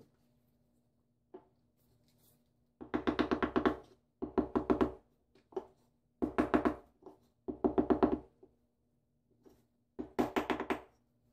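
A hammer tapping rapidly on a wooden beating block held against glass mosaic tile, knocking the tile flat into the thin-set. The taps come in five quick runs of about a second each.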